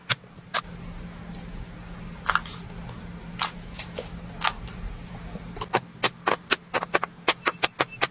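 Silicone pop-it fidget toy bubbles being pressed, each one a sharp pop. The pops come a few at a time at first, then in a quick, even run of about five a second from a little past halfway.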